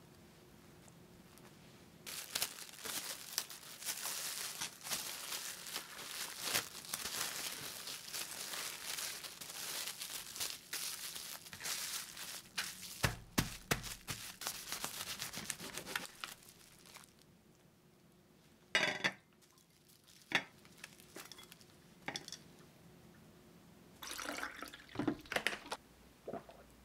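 Sandwich wrapping paper crinkling and rustling as it is folded tightly around a toast sandwich: a dense run of crackles lasting over ten seconds, with a dull knock partway through. After a quieter stretch there are a few more short crinkles near the end.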